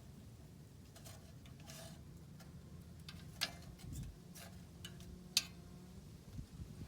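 Faint, scattered sharp clicks and ticks over a low steady hum, with two louder clicks about three and a half and five and a half seconds in.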